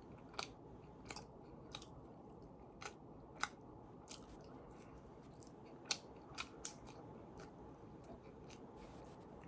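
A person chewing food close to the microphone: irregular short mouth clicks and smacks, about a dozen, over a steady low hiss.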